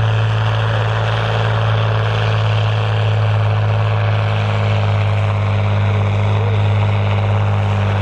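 John Deere tractor's six-cylinder turbo-diesel engine running hard at steady revs under load as it pulls a heavy tractor-pulling sledge, a loud deep drone that holds one pitch.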